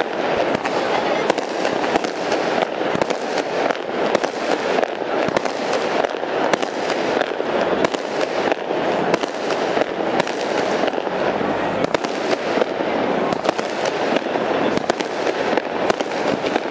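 Aerial fireworks going off in a dense, unbroken run of sharp cracks and bangs, with no gaps.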